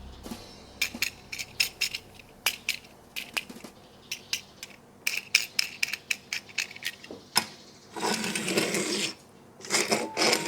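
Sharp clicks and taps of hard plastic toy parts and packaging being handled, several a second, with pauses between them. From about eight seconds in come two stretches of rustling packaging.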